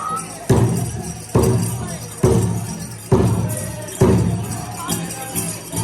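Powwow drum struck in slow, heavy, evenly spaced beats, five strokes a little under a second apart, each ringing out, with jingling metal over them.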